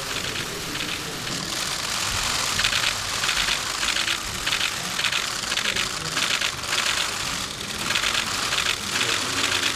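Many press cameras' shutters clicking in rapid overlapping bursts, over a low murmur of voices.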